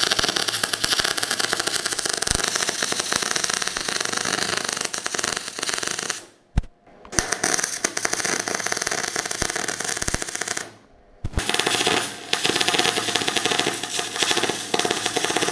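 MIG welding torch laying weld beads on a steel bracket, a dense, steady crackling buzz of the arc. It runs in three passes, broken by short pauses about six seconds in and again about eleven seconds in.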